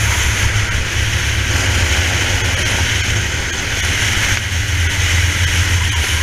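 Racing kart engine running flat out, a steady low drone with constant wind and road hiss, heard from the kart's onboard camera.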